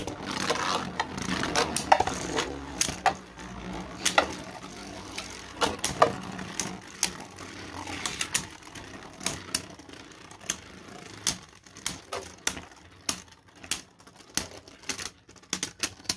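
Beyblade Burst spinning tops battling in a plastic stadium: a steady whir with many sharp clicks as the tops strike each other and the stadium walls. The whir and clicks die down in the last few seconds as the tops lose spin.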